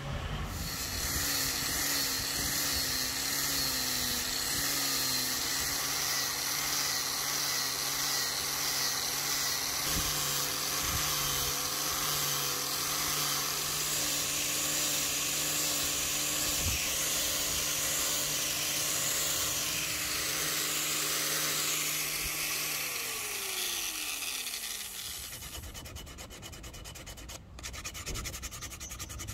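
Electric power sander running steadily as it sands hardwood, its motor hum wavering slightly under the grinding of the abrasive. Near the end it is switched off and the motor winds down to a stop.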